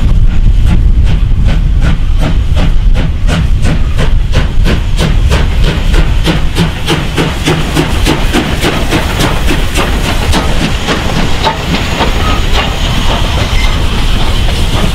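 South African Class 19D 4-8-2 steam locomotive working past at close range, its exhaust chuffing in even beats about four a second over a heavy rumble. About 11 seconds in the beats fade as the tender and coaches roll by with a steady hiss and the clatter of wheels on rail joints.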